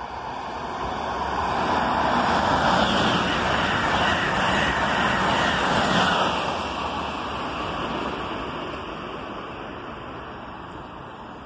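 Amtrak Acela Express trainset running through the station at high speed without stopping. Its rush of noise builds, stays loudest for about four seconds, then fades as the train passes and draws away.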